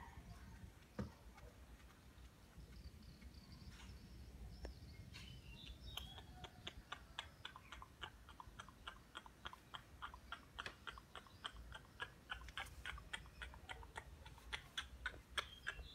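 A cat chewing: a quick run of small, sharp clicks, about three or four a second and a little uneven, starting about six seconds in.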